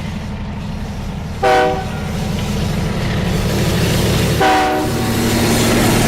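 Locomotive horn sounding two short blasts, about a second and a half in and again three seconds later, over a steady low rumble of a train running.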